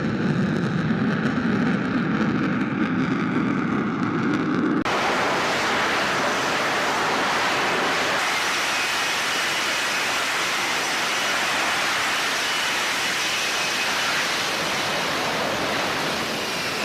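Jet engine noise, loud and steady. About five seconds in it changes abruptly from a duller, lower noise to a fuller, brighter one, with faint high whines in it.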